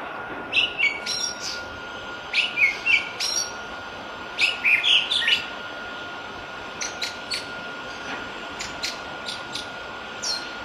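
Jalak lawu (island thrush) singing in the wild: three quick bursts of varied chirping and sliding whistled notes in the first half, then sparse short single notes. A faint steady high tone and a light hiss run underneath.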